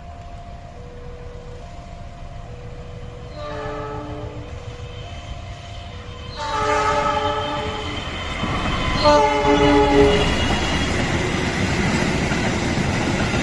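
A level-crossing warning signal alternates between two tones for the first few seconds. The diesel locomotive's chime horn then sounds three times, about a second or more each, the second and third blasts louder. A rising rumble and clatter of the express train passing the crossing grows through the rest.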